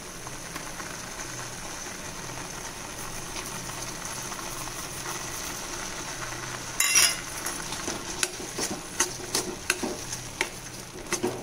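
Star gooseberry paste sizzling steadily in a hot kadai while being sautéed. About seven seconds in comes a loud scrape, then a steel spoon scrapes and clicks against the pan again and again as jaggery powder is stirred into the paste.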